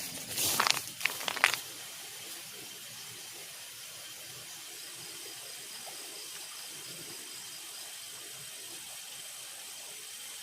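A few loud, sudden noises in the first second and a half, then the steady rush of water from a stream or waterfall, with insects singing in a thin, steady high tone over it.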